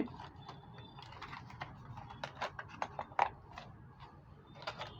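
Faint, irregular small clicks and crackles of plastic and cardboard packaging being handled as an M.2 NVMe SSD is unboxed, a few louder clicks midway.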